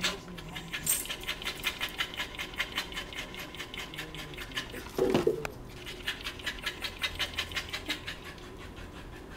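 Cocker spaniel mix panting quickly and evenly, about six breaths a second, fading near the end. A brief louder noise comes about five seconds in.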